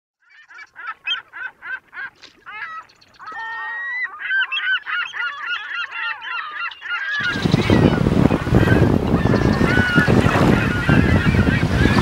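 A rapid run of bird calls, about three a second, grows into many birds calling over each other. About seven seconds in, a steady rush of surf and wind comes in under the calls.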